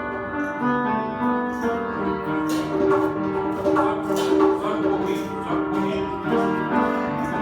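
Live acoustic music: a piano playing sustained notes and chords, with caxixi basket shakers and a berimbau. Short rattling strokes come through over the piano now and then.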